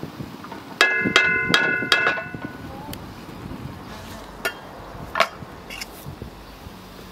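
A spoon knocked against a metal frying pan: four quick ringing clanks in about a second and a half, followed by a couple of lighter clicks.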